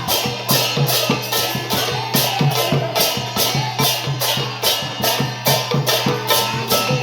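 Sylheti dhamail folk music with a steady, brisk percussive beat, about two and a half sharp strikes a second over a low drum pulse.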